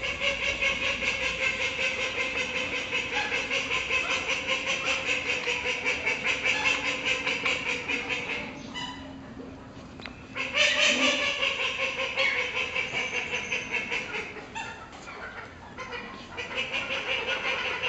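White domestic ducks quacking in rapid, continuous runs, with a short lull about nine seconds in.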